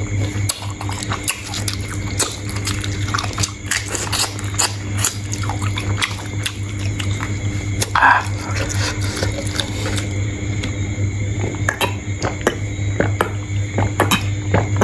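Shrimp shells cracking and crunching as they are peeled and chewed: an irregular run of sharp clicks and crackles over a steady low hum.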